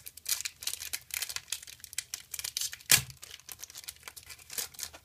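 Foil wrapper of a Pokémon trading card booster pack being torn open and crinkled by hand: a quick run of sharp crackles and crinkles, with one loud rip about three seconds in.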